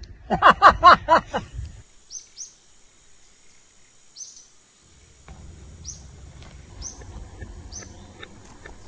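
A cat meows loudly in a quick string of wavering calls for about a second and a half. It then gives way to repeated short falling bird chirps over a steady high whine. From about five seconds in, a low rumble with scattered clicks joins them.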